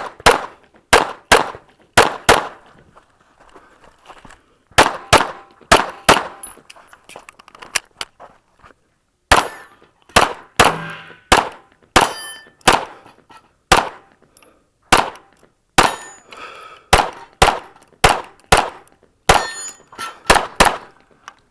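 Rapid 9mm pistol fire from a Smith & Wesson M&P9L Performance Center, mostly quick double shots with a short pause about eight seconds in, along with the ringing of steel targets being hit.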